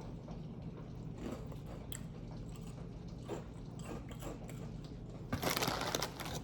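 A person chewing and biting food close to the microphone, with scattered soft mouth clicks over a steady low background hum. Near the end there is a louder burst of noise lasting about a second.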